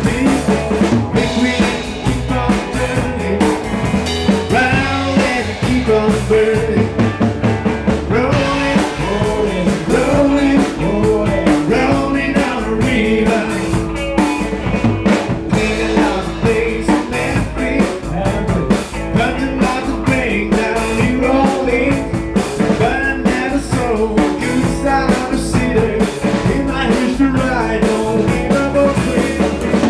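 Live rock band playing, with a man singing into a microphone over the band and a drum kit keeping a steady beat.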